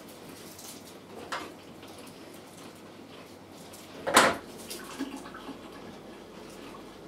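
Light handling noises at a bar counter. About four seconds in a kitchen knife gives one sharp, loud knock on the counter as a fruit garnish is cut, followed by a few softer clicks.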